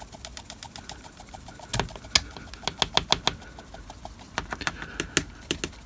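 Handheld WWS static grass applicator being shaken vigorously, its hopper of static grass fibres rattling in quick irregular clicks and ticks, with a few louder knocks among them.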